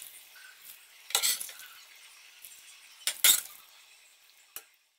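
Metal spoon scraping and clinking against a frying pan while scooping out fried grated beetroot, in two short clatters about two seconds apart, with a small tap near the end.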